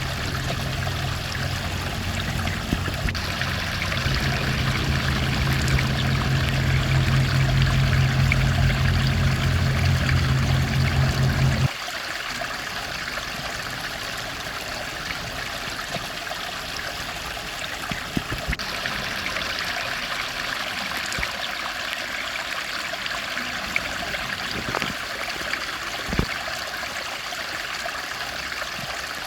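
Steady rush of a flowing stream or creek. For roughly the first twelve seconds a loud, low steady drone runs under the water and then cuts off suddenly.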